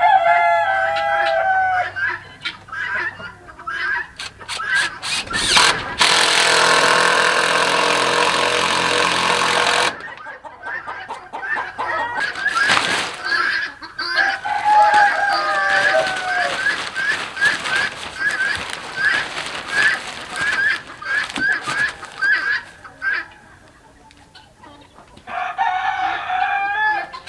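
Backyard chickens clucking steadily while roosters crow several times; the loudest crow comes about a quarter of the way in. Sharp taps and clicks are heard here and there.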